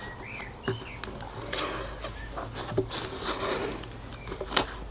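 Masking tape being pulled off the roll and pressed down, in two short rasps with small handling clicks. A few short high squeaks come near the start.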